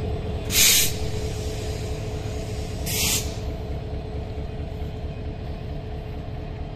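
Diesel locomotive running with a steady low rumble and hum, with two short, sharp air-brake hisses, about half a second and three seconds in, as the coach is being coupled to the train.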